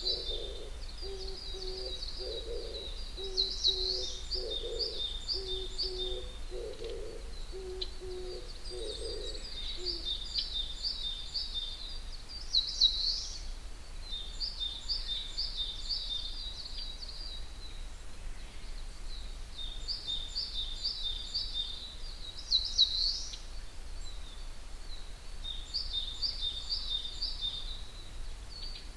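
Wild birds singing at dawn in a forest. One songbird repeats a phrase of quick, high, down-slurred notes every few seconds, and a low hooting call repeats underneath until about ten seconds in.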